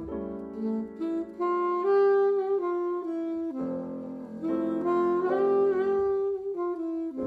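Background music: a saxophone playing a melody of held notes that step up and down in pitch.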